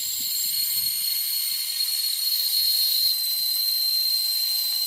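Air escaping from a car tire through the open valve stem with its valve core removed: a steady hiss carrying a high whistle, which steps slightly lower in pitch about three seconds in. The tire is being let down to flat before a new valve core goes in.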